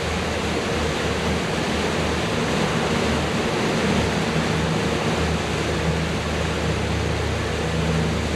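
Boat motor running steadily under way, a low hum under a constant rush of water and wind noise.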